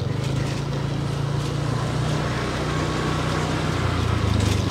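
Small motorbike engine running at low speed, a steady hum that drops to a lower note about four seconds in as the throttle eases.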